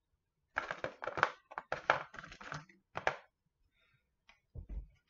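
Small stones clattering and clicking against one another and the tabletop as hands sort through a pile of them, in quick runs of rattles over the first three seconds or so. A soft low thump comes near the end.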